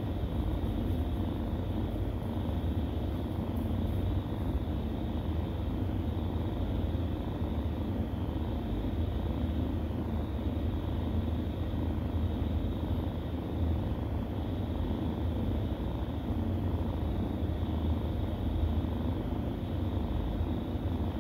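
Domestic cat purring steadily and close up during nursing, a continuous low rumble.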